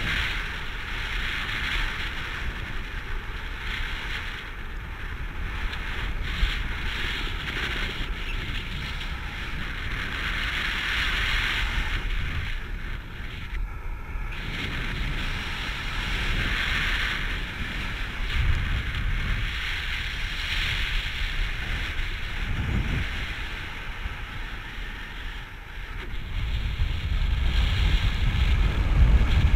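Wind rushing over the microphone of a pilot-mounted camera in paraglider flight, a steady airflow hiss with a low buffeting rumble underneath that grows louder near the end.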